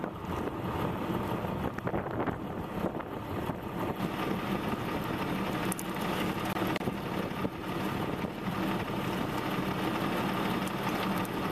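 Steady engine hum, running at an even idle, with a few faint clicks over it.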